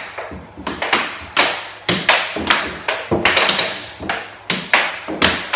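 Air hockey puck clacking sharply off the mallets and table rails in a fast rally, with irregular hits about two or three times a second.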